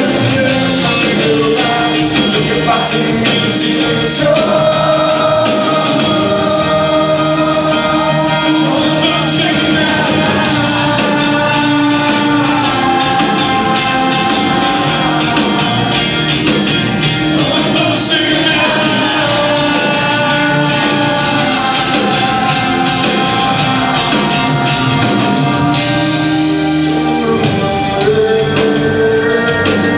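Live concert music: singing over a full band, loud and continuous, with long held and gliding vocal notes.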